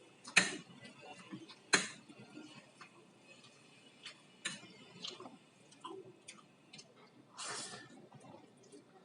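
Close-miked eating of instant pancit canton noodles: two loud sharp clicks in the first two seconds, scattered smaller clicks of chewing, and a short noisy burst of about half a second near the end.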